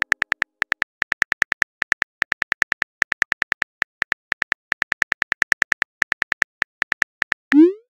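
Phone-keyboard typing clicks from a texting app: a fast, slightly uneven run of short ticks as a message is typed. Near the end comes a short rising swoosh, the message-sent sound.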